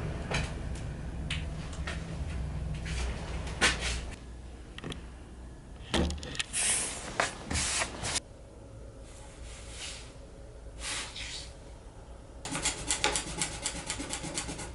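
Objects being handled and set down on a work desk: scattered knocks, clicks and rustles, with a denser run of small clicks near the end.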